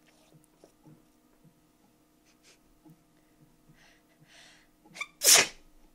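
A few faint breaths and a drawn-in breath, then one loud sneeze about five seconds in, brought on by sniffing pepper.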